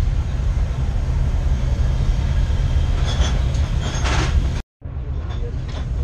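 Steady low rumble of an Airbus A330-300's cabin air and systems before departure, with paper rustling as a printed menu is handled about three to four seconds in. The sound drops out to silence for a moment just before five seconds in, then the rumble carries on.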